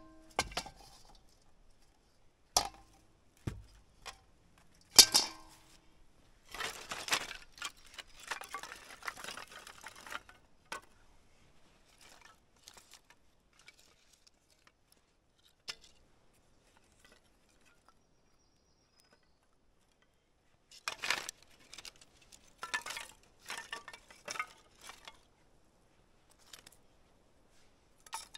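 A small charcoal kettle grill's metal parts clink and knock as it is lifted and set down, the loudest knock ringing briefly. Then split kindling sticks clatter against each other as they are gathered and stacked for a fire, in two spells with a quiet stretch between.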